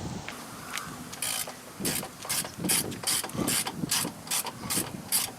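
Hand ratchet wrench clicking in short strokes, about two a second, as 10 mm bolts are worked loose by hand.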